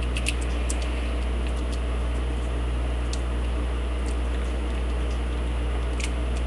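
Faint, scattered small clicks and scrapes of a homemade lock pick and tension wrench working inside a lock, still not open, over a steady low electrical hum.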